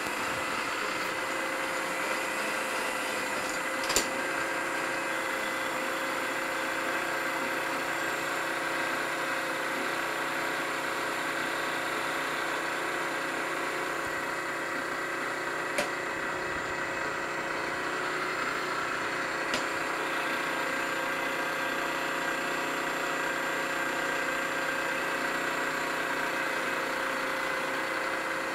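Milling machine spindle running steadily while an end mill takes the last cut along an aluminium casting held in a vise. Three brief sharp clicks stand out over it, about 4, 16 and 20 seconds in.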